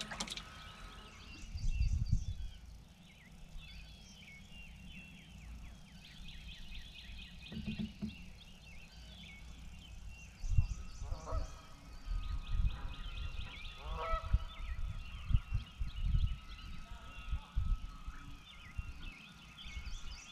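Birds calling: small birds chirping throughout, with a few louder, lower calls about eleven and fourteen seconds in. Scattered dull low thumps and rumbles are the loudest sounds.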